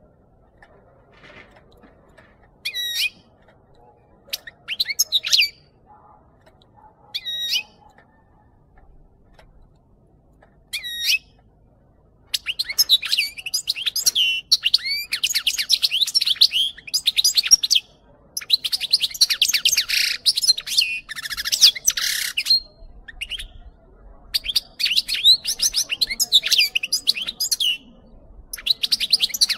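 European goldfinch singing: four short separate calls in the first dozen seconds, then long runs of rapid twittering song broken by brief pauses.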